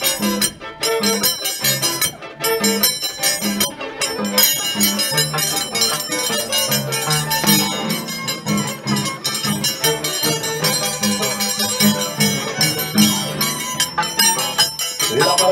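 Live band music with a steady beat and a repeating bass line, bright percussion running over it.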